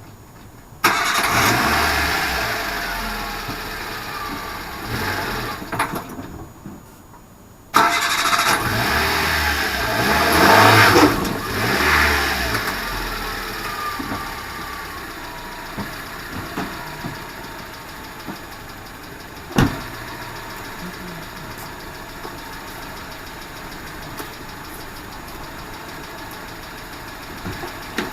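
Subaru Vivio's 658 cc four-cylinder engine started about a second in, running briefly, then cutting out. It is started again after a short pause, revved, and settles into a steady idle. A single sharp click comes about two-thirds of the way through.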